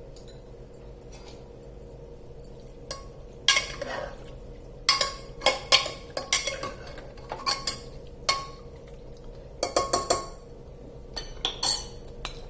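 Metal spoon and steel pressure cooker clinking and knocking as the chicken is handled in the cooker and the cooker is closed up. The sharp metallic strikes come irregularly, several with a short ring, with bunches of them around the middle and near the end.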